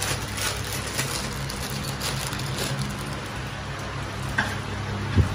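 Thin plastic packaging crinkling and rustling as a bangle set is unwrapped, over a steady low hum. A short soft knock near the end.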